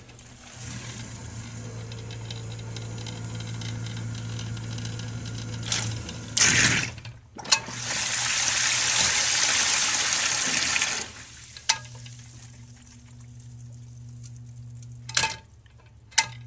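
Newly installed sump pump running with a steady hum while water churns and rushes in the pit. The rushing is loudest for a few seconds past the middle, with a few clunks, and the hum carries on more quietly afterwards as the pit is pumped out.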